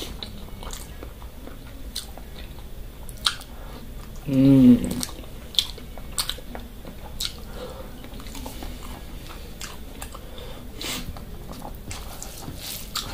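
A person eating mutton curry and rice: steady chewing with scattered sharp clicks and smacks of the mouth, and a brief hum of the voice about four seconds in.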